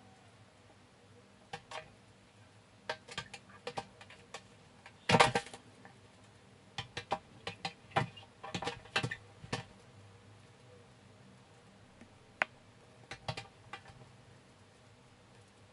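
A sugar glider's claws clicking and scrabbling on a hard plastic floor and walls: scattered sharp taps, one louder scuffle about a third of the way in, and a quick run of taps around the middle.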